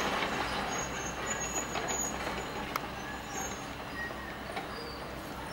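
Hydraulic excavators working a pile of scrap steel: diesel engines running under steel grinding and scraping, with short high metallic squeals and one sharp clank about three seconds in.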